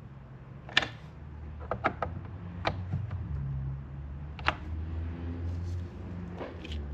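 Scattered sharp clicks and taps of hands working small wiring connectors and cables, over a steady low hum.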